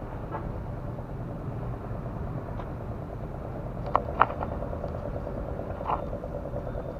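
Steady low rumble of road traffic with a motorcycle-like engine buzzing. Two sharp clicks come about four seconds in, and another near six seconds.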